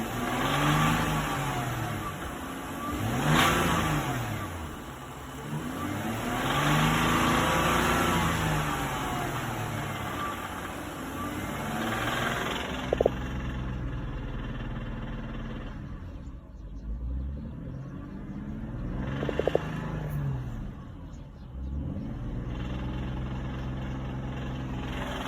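BMW X6 engine revved several times from idle, each rev rising and falling back, with steady idling between. The owner is asking what causes a knock in this engine.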